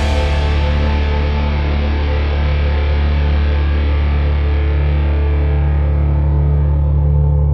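Background rock music: a distorted electric guitar holds one sustained low chord while the treble gradually fades away.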